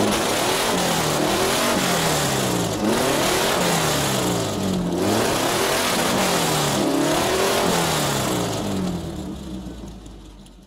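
Air-cooled 1600 flat-four engine of a 1978 VW Fusca (Beetle) being revved in repeated blips, the pitch climbing and dropping back roughly once a second, fading out over the last couple of seconds.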